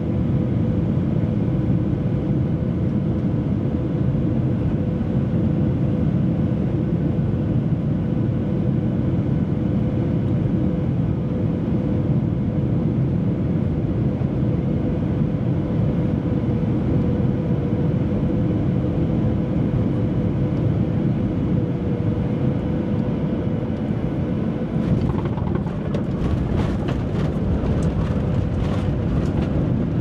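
Cabin noise of a Boeing 737-800 on final approach: a steady rush of airflow and engine noise with a steady hum. About 25 seconds in, a run of knocks and rattles comes in as the wheels touch down on the runway.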